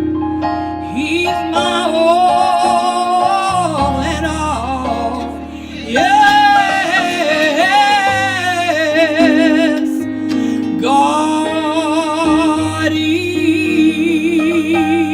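Live gospel music: a solo singer holds long notes with heavy vibrato in three drawn-out phrases, over sustained keyboard and bass chords.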